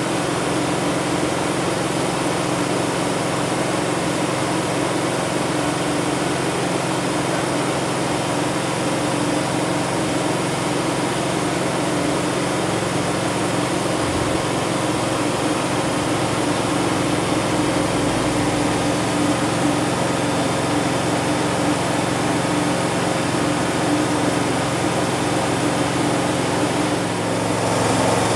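Kubota compact tractor's diesel engine running steadily. Its note shifts slightly about halfway through and grows a little louder near the end.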